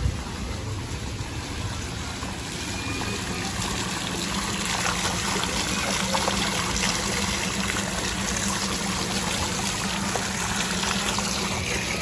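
Small fountain's water jet splashing into its bowl-shaped basin, a steady rushing patter that grows louder about four seconds in and then holds.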